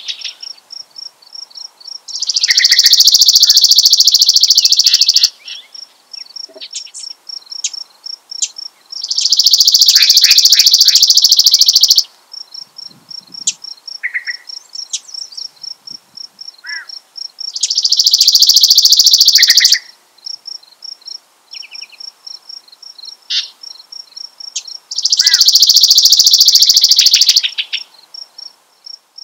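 Chipping sparrow singing four long, dry, very rapid high trills, each lasting two to three seconds and coming every seven or eight seconds. Between the trills a yellow-breasted chat gives scattered short calls and slurred notes.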